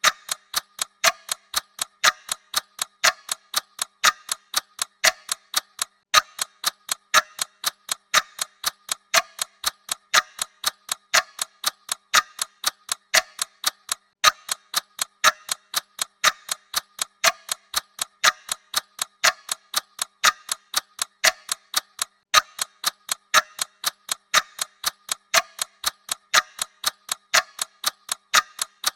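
Clock ticking sound effect: a fast, even train of sharp ticks that never varies.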